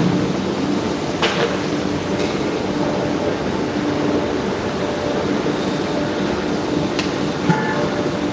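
Steady hum of workshop machinery with faint low pitched tones that come and go, and a few short sharp clicks, about a second in and again near the end.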